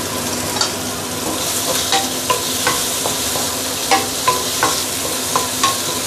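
Sliced meat, garlic and green onion sizzling in oil in a stainless-steel wok as they are stir-fried. A wooden spatula knocks and scrapes against the pan, making sharp taps with a short metallic ring, about nine times at irregular spacing.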